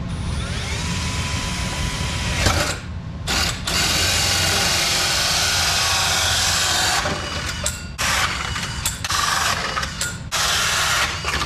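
Cordless drill cutting gauge holes through a metal gauge panel, a loud grinding, whining cut in long runs with brief pauses between them.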